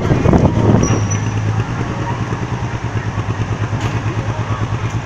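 Heavy military diesel engine running with an even, rapid pulsing beat, louder and rougher for the first second or so before settling.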